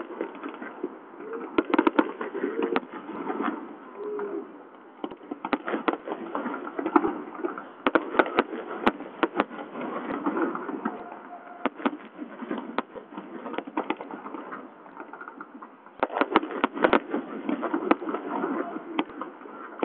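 Aerial fireworks display: shells bursting with sharp bangs and crackle in quick, irregular succession, with a couple of brief lulls.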